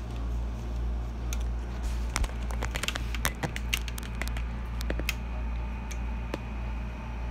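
Steady low hum of an air conditioner, with a cluster of light clicks and taps from handling between about one and five seconds in.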